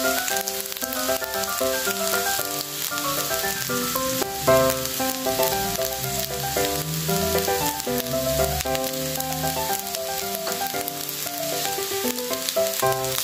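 Cooked rice sizzling steadily in hot oil in a nonstick pan. A melody of background music plays over it.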